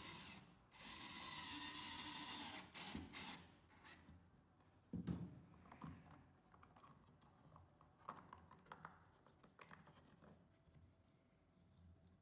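Hands handling a plastic bullet security camera and an aluminium junction box. A steady scraping rub lasts for the first two to three seconds, with a brief break early on, and is followed by a few short scrapes. A single sharp knock comes about five seconds in, then light clicks and taps as the parts are fitted together.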